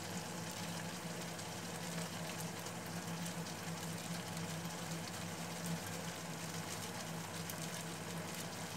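Tomato, chili and onion sambal sizzling and bubbling steadily in a small frying pan, with a constant low hum beneath.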